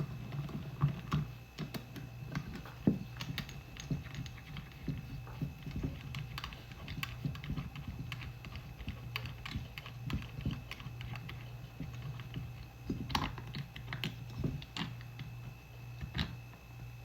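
Irregular light clicks and taps of hand tools and small metal carburetor parts being handled during disassembly, over a steady low hum.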